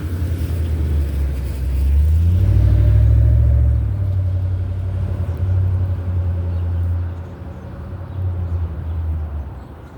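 A motor vehicle passing, a low rumble that swells about two seconds in and eases off after about seven seconds, with a faint steady whine over it in the middle.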